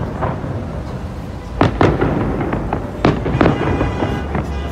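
Aerial fireworks shells bursting overhead: a string of booms, the loudest about one and a half and three seconds in, with lighter bangs and crackle between.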